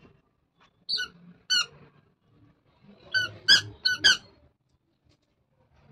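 A toddler's squeaker shoes chirping with her steps: six short, high squeaks, two about a second in and four more in quick succession a little later.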